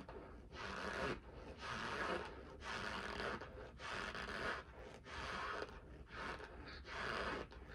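Cornstarch chunks crunching as they are chewed, about one crunch a second.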